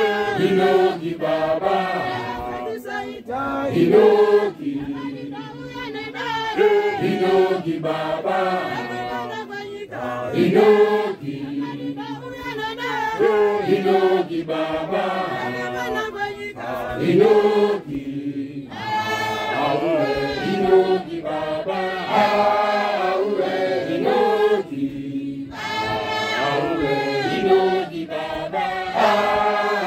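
A Johane Masowe apostolic congregation singing an unaccompanied hymn: many voices together in long chanted phrases, with brief pauses between some lines.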